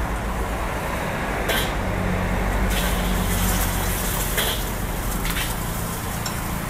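A metal ladle scraping and knocking in a steel wok a few times, over a steady low rumble of street traffic.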